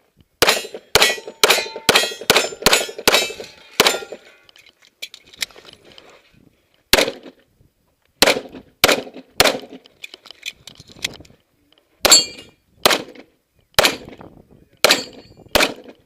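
Gunfire from an M1 Garand rifle and a pistol: a quick string of about eight sharp shots in the first four seconds, then shots in smaller groups spaced through the rest. Many are followed by a high metallic ring.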